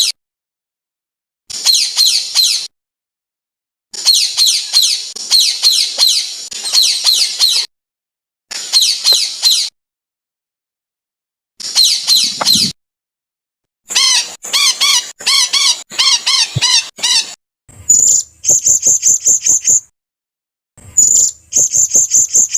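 Songbird song in short spliced phrases: rapid runs of high, repeated chattering notes, each phrase breaking off abruptly into silence. The last two phrases are fast trills held on one high pitch.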